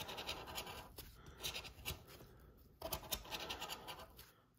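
A plastic scratcher tool scraping the coating off a scratch-off lottery ticket in quick repeated strokes, with short pauses between runs.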